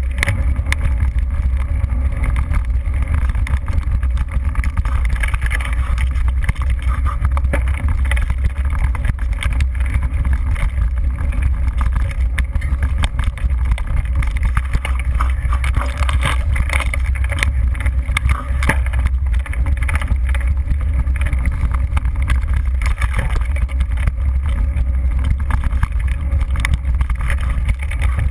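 Mountain bike ridden over a rough dirt trail: a steady low rumble of wind and ground vibration on the bike-mounted microphone, with frequent small knocks and rattles as the bike jolts over bumps.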